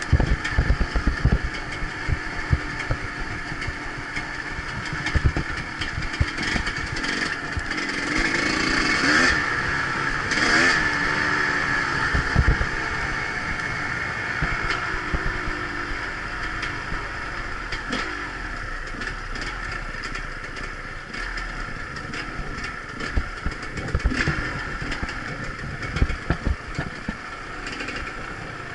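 Off-road motorcycle engine running as the bike rides a rough dirt track, rising and falling in pitch as it revs about a third of the way in, with knocks and rattles from the bumps.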